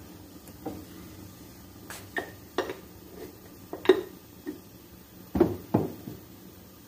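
Stainless steel kitchen pots and utensils knocking and clinking: a string of scattered sharp metallic knocks, the loudest about four seconds in and two heavier ones a little later.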